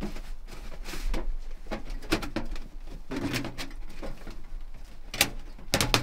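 Light metal knocks and clicks of a Winnerwell Fastfold titanium tent stove and its stovepipe being set down and fitted into place. The sharpest clicks come near the end.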